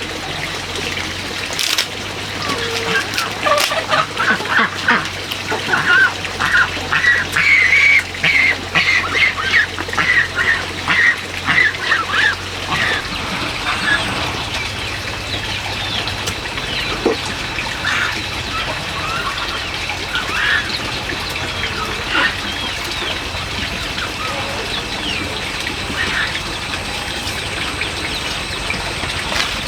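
Birds calling: a fast run of short, repeated calls through roughly the first dozen seconds, then scattered, fainter calls.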